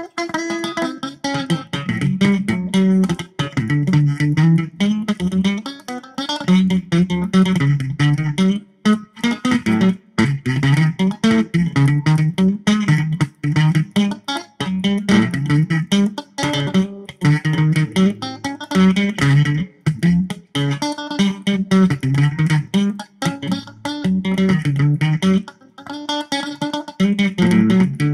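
Electric guitar played through a Zoom 506 bass distortion pedal: a crunchy low riff repeated again and again, with a few brief breaks.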